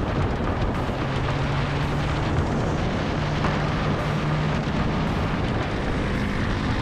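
Motorcycle riding at speed: a heavy rush of wind on the microphone over the steady hum of the engine.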